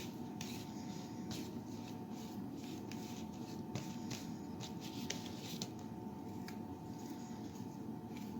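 A utensil scraping and working a thick peanut-butter suet mixture of grease, cornmeal and oats, giving soft irregular scrapes and small ticks.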